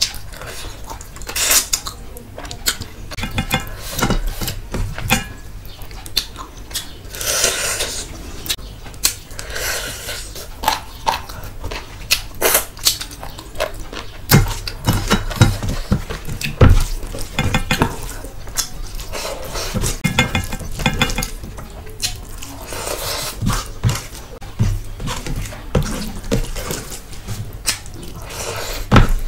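Close-miked eating by hand: fingers mixing and scraping rice and gravy on a steel plate, with frequent clinks and scrapes, and wet chewing of mouthfuls of rice.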